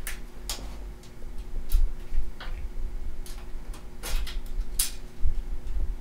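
Screwdriver driving an expansion-slot screw into a WiFi card's bracket on a PC case: about ten sharp metallic clicks and ticks at uneven spacing.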